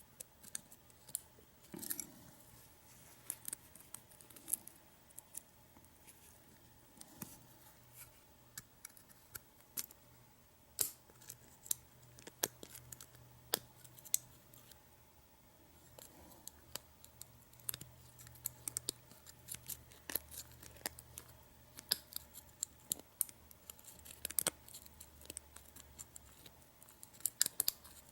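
Lock picks working in the keyway of a U-Haul disc padlock: small, irregular metallic clicks and scratches as the pins are set, with a few sharper clicks in clusters about two seconds in, around the middle and near the end.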